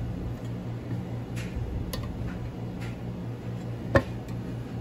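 Steady hum of household appliances running (dehumidifier, clothes dryer and air conditioner), with a few faint ticks and one sharp click about four seconds in as a chrome badge is pressed by hand onto a plastic breather cover.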